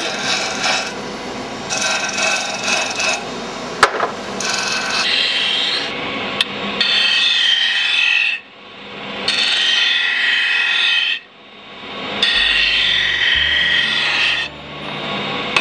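Benchtop disc sander grinding a block of wood pressed against its spinning disc, in a series of rasping passes a second or two long. The sanding breaks off briefly twice, about 8 and 11 seconds in, and there is one sharp knock about four seconds in.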